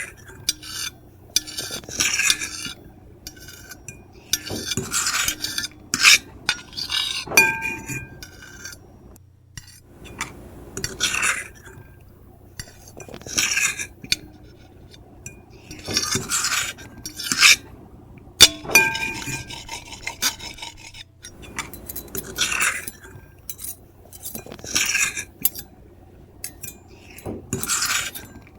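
Metal fork and knife scratching and scraping across a plate in repeated short strokes every second or two, with occasional clinks that ring briefly.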